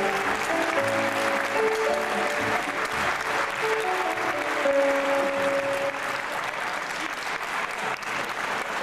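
Audience applauding over electronic keyboard music playing a short phrase of held notes; the keyboard stops about six seconds in while the clapping goes on.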